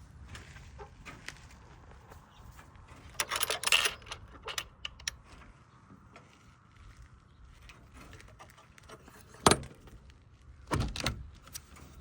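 Rattling and knocking of things being handled: a jangling rattle about three seconds in, a single sharp knock past the middle, and another short rattle near the end, with small clicks between.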